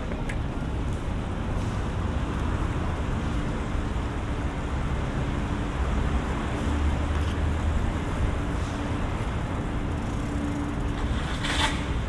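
Street traffic noise: a steady low rumble of cars with an on-and-off low engine hum, and a short sharp burst of noise near the end.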